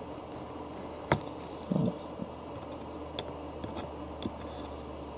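A metal snap-off utility knife nicking into the corner of paper-covered mat board: one sharp click about a second in, then a few faint ticks, over a steady electrical hum.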